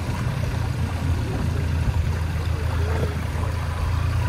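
2024 Toyota Land Cruiser's 2.4-litre turbo four-cylinder hybrid powertrain running with a steady low rumble as the truck creeps toward a rock garden in four-low, heard from outside the vehicle.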